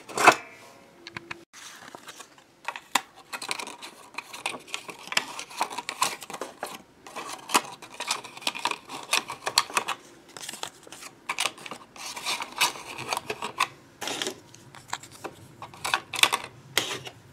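Hands putting play money into the open plastic drawer of a toy cash register: irregular small plastic clicks, taps and rattles throughout.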